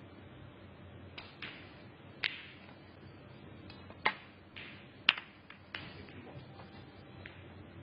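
Snooker balls clicking: a run of about eight sharp clicks from the cue striking the cue ball and balls knocking together, spread over several seconds. The loudest two come about four and five seconds in.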